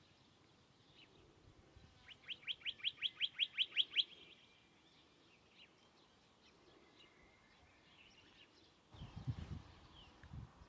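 Western rock nuthatch singing: a trill of about a dozen rising whistled notes, about six a second, growing louder over two seconds. Faint scattered calls follow. About nine seconds in, a low rumbling noise starts.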